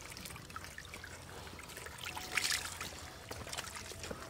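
Hands and catfish splashing and sloshing in a shallow muddy puddle as the fish are grabbed by hand, with small scattered drips and trickles and one louder splash about two and a half seconds in.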